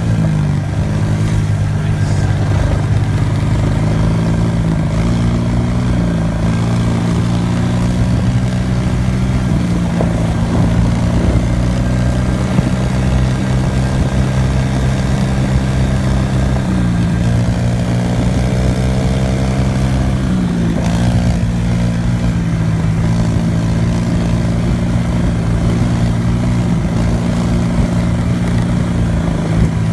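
Close-up engine noise from off-road machines riding along at a steady trail pace, with the engine pitch stepping up or down every few seconds as the throttle changes. A Kawasaki KLX 110 dirt bike rides just ahead.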